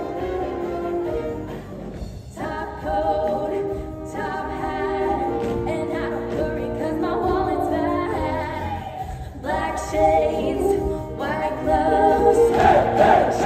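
A large chorus singing a musical-theatre number, in phrases with short breaks between.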